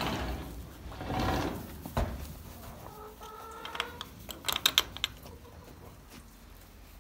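Barn rustling at first, then a single held call from a farm animal about three seconds in, lasting about a second at a steady pitch. Just after it comes a quick run of sharp clicks.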